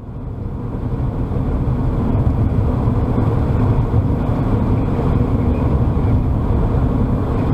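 Car driving at speed, heard from its dashcam inside the cabin: a steady low drone of engine and tyre noise that fades in over the first second or so.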